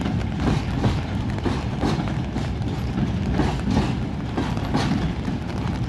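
Loaded freight train flatcars rolling past: a steady low rumble with repeated clacks as the wheels cross rail joints, a few times a second.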